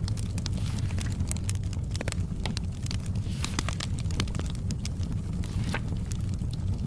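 Wood fire in a fireplace crackling, with irregular sharp pops and snaps over a low steady rumble. A soft, short papery swish, like a book page turning, comes about halfway through.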